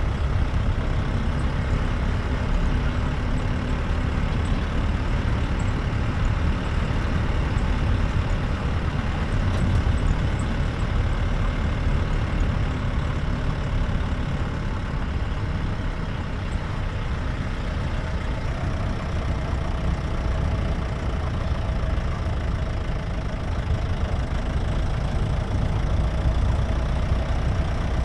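Jeep's engine running and its tyres on the road while driving, a steady low rumble.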